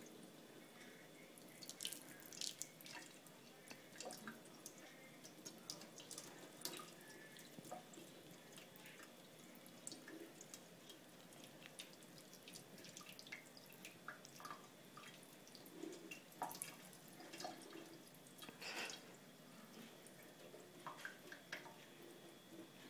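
Faint trickle of a thin stream of tap water into a stainless steel sink, with frequent small irregular drips and splashes as a kitten paws at the stream.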